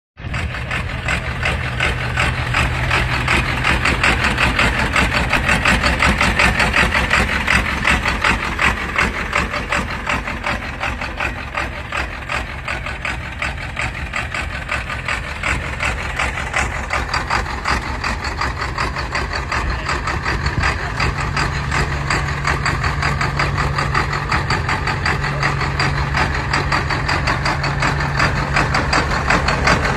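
Large turbocharged engine swapped into a modified 500-plus-horsepower Ford 8N tractor, idling steadily through short open exhaust stacks with a fast, even pulse.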